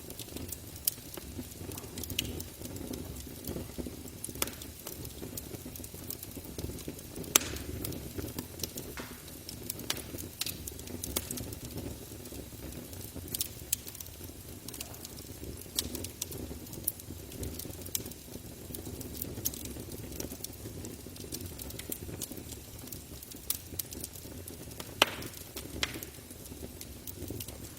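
Campfire burning, with irregular sharp crackles and pops over a steady low rumble of the flames.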